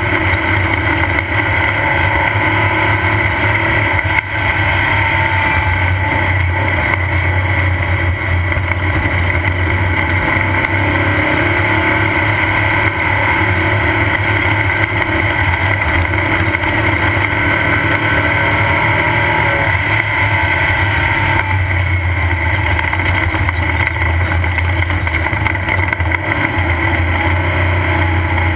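Off-road race car's engine running hard at a steady race pace, heard from on board as a loud, unbroken drone with wind and chassis noise mixed in.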